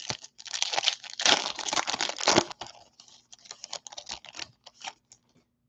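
Foil wrapper of a baseball-card hobby pack torn open and crinkled by hand. A dense crackle runs for about the first two and a half seconds, then comes a scatter of softer crinkles and clicks as the cards are slid out.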